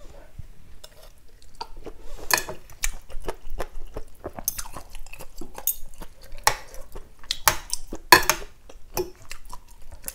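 Metal spoon and fork clinking and scraping against a ceramic bowl of noodle soup as noodles are lifted and stirred: irregular sharp clicks, the loudest about eight seconds in.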